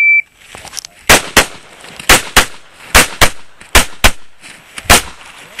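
A shot timer gives one short beep. About a second later a pistol fires about nine shots, mostly in quick pairs about a third of a second apart: two rounds on each target.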